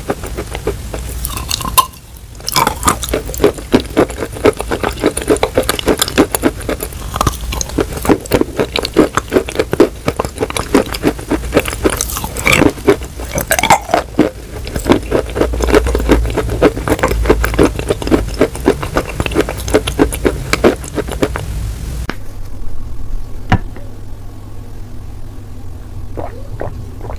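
Close-miked chewing of Turkestan clay chunks with wet clay paste: dense, irregular crunching and squishing, several crackles a second. Near the end it drops to a much quieter stretch with only a few faint clicks.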